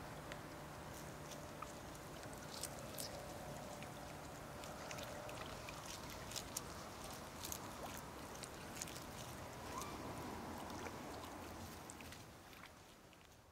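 Small drips and splashes of pond water as a Japanese macaque reaches into the shallows and handles leaves: scattered short ticks over a steady faint outdoor background, fading out near the end.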